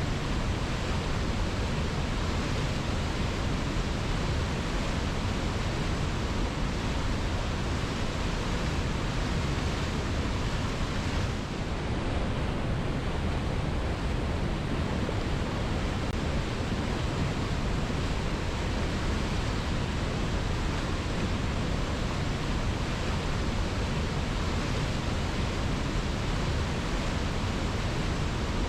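Waterfall rushing steadily: a dense, even wash of falling water, heaviest in the low end, with one brief slight dip about twelve seconds in.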